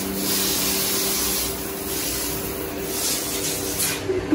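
Aerosol party snow spray cans hissing in several bursts as they are sprayed, the longest at the start and shorter ones near the end.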